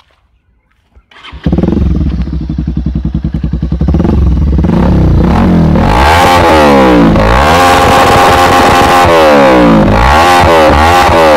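Bajaj Pulsar 220's single-cylinder engine starting through a handmade cobra-style custom exhaust. It catches about a second in and idles with a fast pulsing beat, then from about halfway on is revved up and down again and again, loud.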